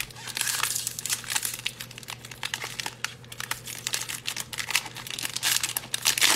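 Shiny foil wrapper of a football trading-card pack crinkling and crackling as gloved hands tear it open. The crackle is dense and irregular.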